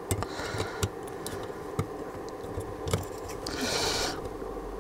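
Soldering work on a circuit board: scattered light clicks and scrapes of tools on the board, with a short hiss about three and a half seconds in, over a steady background hum.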